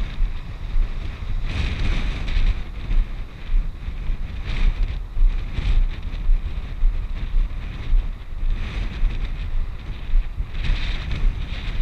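Wind buffeting the camera's microphone: a constant low rumble, with several stronger gusts of hiss.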